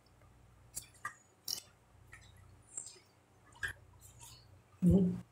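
Close-miked eating and drinking sounds: chewing of crunchy toasted bread and sipping of coffee from a mug, heard as a scatter of small clicks and wet slurps. A short, louder, low throaty sound comes near the end.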